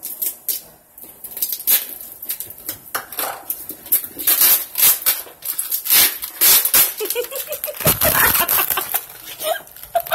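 Plastic wrap and packing tape crinkling, crackling and tearing as a heavily taped package is cut open with scissors and the plastic pulled apart. Near the end, a few short high-pitched whines that rise in pitch.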